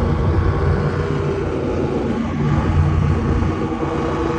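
Boat engine running steadily at a constant pitch.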